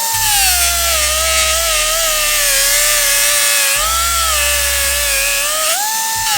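Angle grinder at about 13,000 RPM with a 3M Cubitron II 982 CX coarse fiber disc hogging a weld bead off quarter-inch plate. The motor's whine drops in pitch as the disc is pushed into the metal and rises briefly when it is eased off near the start and again near the end.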